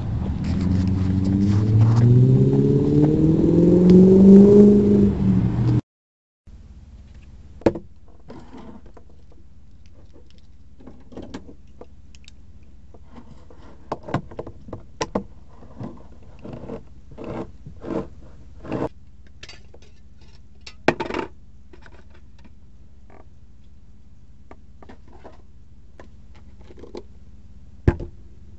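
Semi truck's diesel engine accelerating, its pitch rising steadily for about six seconds before the sound cuts off. After that comes a steady low hum with scattered clicks, taps and short scrapes of small objects being handled.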